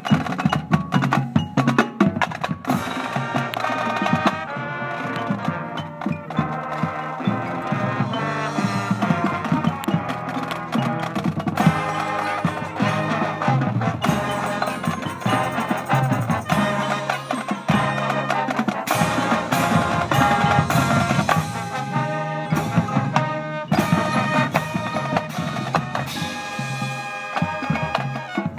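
High school marching band playing its field show: sustained pitched ensemble parts over frequent sharp percussion hits throughout.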